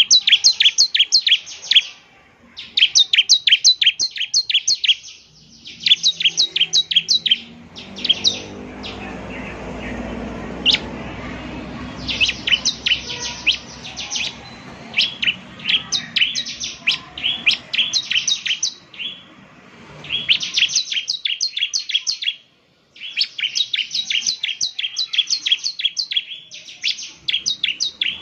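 Bar-winged prinia (ciblek) singing: fast runs of sharp, high chirps in bursts of one to two seconds, with short pauses between. A low rumbling noise sits under the song about a third of the way in.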